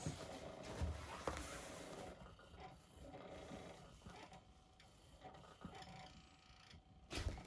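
Faint rustling of a nylon pop-up cat tent and soft knocks as a kitten scrambles over it, with a louder thump near the end.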